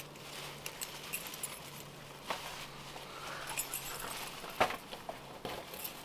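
Keys clinking and jacket fabric rustling as someone fumbles for a house key, a scatter of short, light clicks spread over several seconds.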